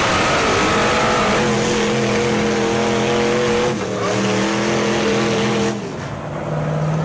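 High-horsepower truck engines held at high revs while the tires spin on concrete, with a brief dip a little under four seconds in and the throttle backing off about six seconds in.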